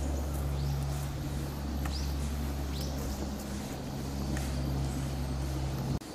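A steady low mechanical hum that cuts off suddenly near the end, with two short rising bird chirps about two and three seconds in.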